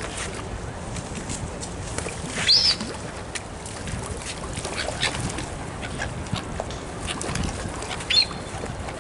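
Waterfowl and other birds calling as they are fed, with two loud, high, arching calls, one about two and a half seconds in and one near the end, and softer calls and short ticks in between.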